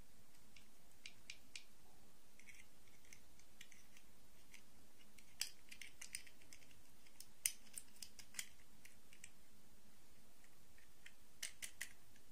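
Small plastic dolls and their clip-on plastic dresses handled and fitted together: scattered light plastic clicks and taps, a few sharper ones about five and seven seconds in, and a quick run of clicks near the end as a dress is pressed onto a doll.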